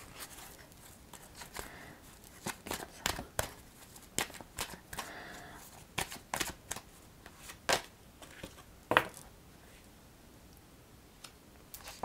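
A deck of oracle cards being shuffled and handled by hand: irregular sharp snaps of card stock, with a few short soft slides between them.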